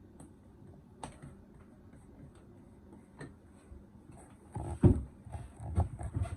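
Scattered small clicks, then a cluster of louder knocks and handling noise starting about four and a half seconds in: the plastic fire alarm heat detector and its base being handled as the install is finished.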